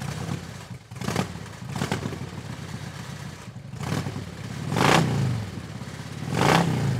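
Motorcycle engine revving in repeated surges, the two loudest about five and six and a half seconds in, each rising and then falling in pitch.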